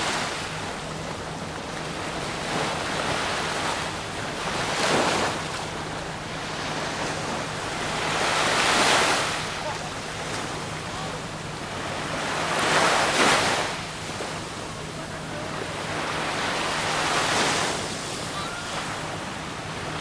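Small waves washing onto a sandy shore, the surf swelling about every four seconds, with wind buffeting the microphone. A faint steady low hum runs underneath.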